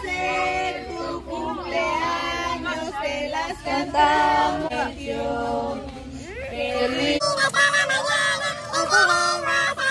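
A group singing a birthday song together, several voices holding long notes. A little after seven seconds in, the sound changes abruptly: the low hum drops away and the singing turns brighter and louder.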